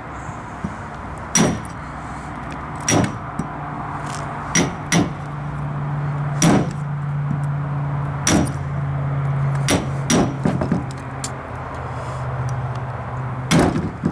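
A hammer knocking on the back of a hatchet to drive the blade through a snapping turtle's ribs alongside the backbone, freeing the back meat. About ten sharp knocks come one every second or two, with a quick run of three near two-thirds of the way through.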